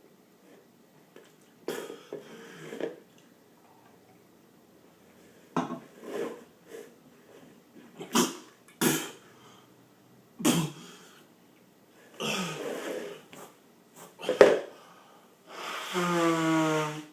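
A man coughing, hacking and clearing his throat in a string of short fits, choking on the burn of a very hot chili pepper at the back of his throat; near the end comes a held, pitched vocal groan of about a second.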